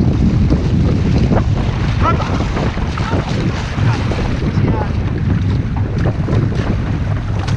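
Wind buffeting the microphone over water rushing and splashing against an outrigger canoe's hull, with repeated short splashes as the paddles dig in.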